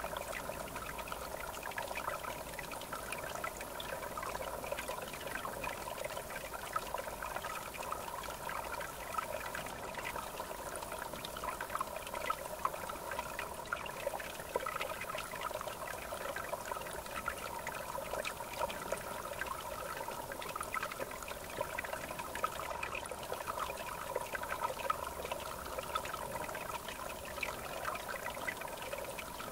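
River water flowing and trickling steadily, a dense run of small splashes.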